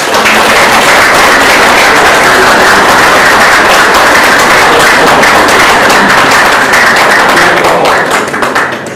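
Audience applauding, a loud, steady wash of clapping that dies away near the end.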